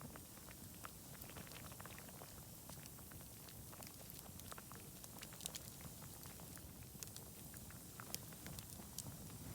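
Faint campfire crackling: irregular small pops and ticks, a few sharper ones in the second half, over a low steady rumble.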